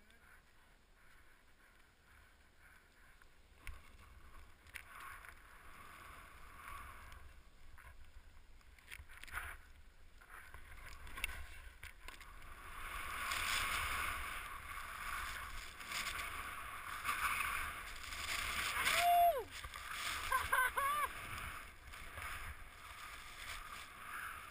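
Skis hissing and swishing through deep powder snow. It is faint at first, then louder and steadier from about halfway as the skiers get going, over a low wind rumble on the helmet camera's microphone. A brief falling yell comes about three-quarters of the way through.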